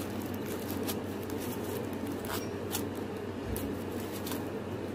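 Hands unwrapping a small item from its soft white packaging sheet, giving a few short crackles and rustles. A steady low hum runs underneath.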